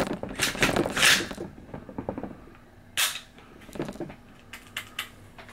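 SIG 716 rifle being handled and dry-fired in a function check after reassembly: rustling handling noise in the first second, then a sharp metallic click about three seconds in and a few lighter clicks after it.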